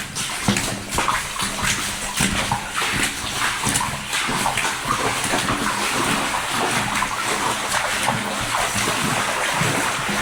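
Repeated splashing and sloshing of feet wading through floodwater in a drainage tunnel, several irregular splashes a second over continuous water noise.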